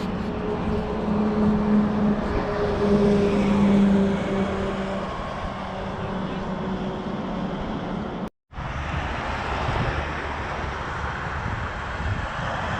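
Street traffic: a vehicle engine drones steadily in the first few seconds, loudest about a third of the way in, over road noise. After a brief cut there is only the noise of traffic.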